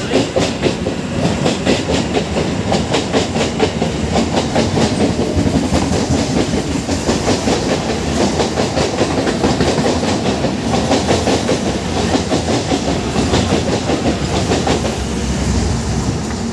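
Passenger train wheels clattering over rail joints as coaches roll past close by: a rapid, steady clatter of clicks.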